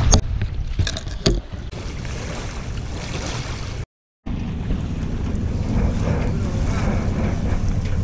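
Wind buffeting the microphone as a steady low rumble, with water lapping. A few sharp knocks come in the first second and a half, and the sound cuts out for a moment about four seconds in.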